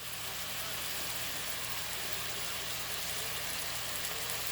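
Bacon and chicken frying in a pan, a steady sizzle, with a low steady hum underneath.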